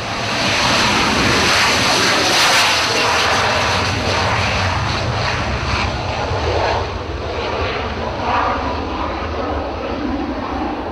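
Harrier jump jet's Pegasus turbofan running at full power through the take-off run and lift-off, a loud jet roar. It is loudest two to three seconds in, then slowly fades as the jet climbs away.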